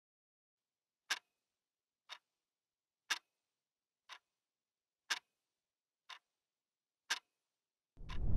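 Clock ticking once a second, seven ticks that alternate louder and softer in a tick-tock pattern. About eight seconds in, a loud rushing noise with a deep rumble swells in.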